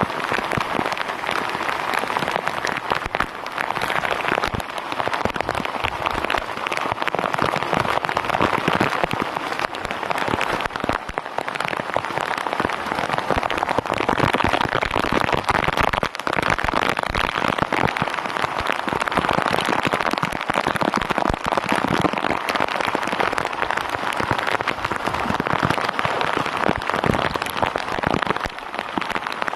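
Rain falling steadily on the sea and an open bamboo-outrigger boat: a dense, even hiss of countless drops.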